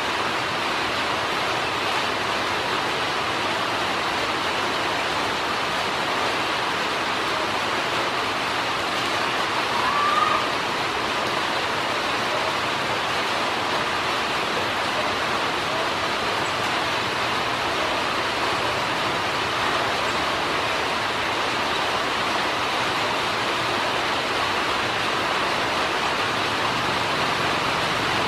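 Ducklings pecking dry feed off the floor of a stainless steel bowl, a dense continuous patter. One short rising peep about ten seconds in.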